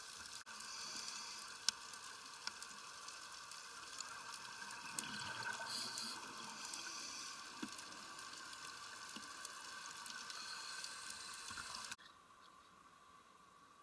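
Underwater sound picked up through a camera housing: a steady hiss with crackling and scattered clicks, swelling louder around five to six seconds in. About twelve seconds in it cuts abruptly to a much quieter steady noise.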